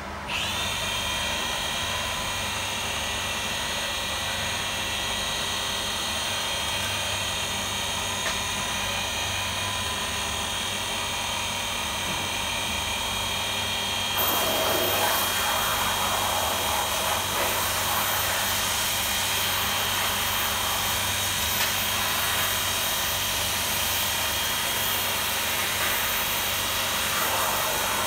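Brother 217 CNC machine's servo-driven spindle spins up with a quick rising whine, then runs with a steady high whine. About halfway through, a louder rushing noise joins while the table travels along its axis.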